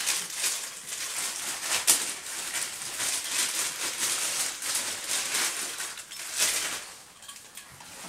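Plastic wrapping and packing paper rustling and crinkling as items are handled and pulled out of a cardboard box, with a sharp crackle about two seconds in; it quietens near the end.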